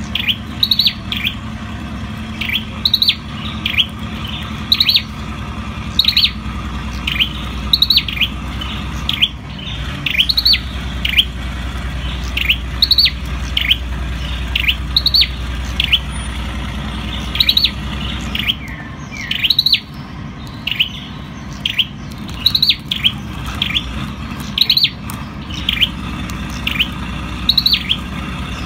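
Olive-backed tailorbird (Orthotomus sepium) singing: loud, sharp, high chirping phrases of two or three quick notes, repeated about every second or two.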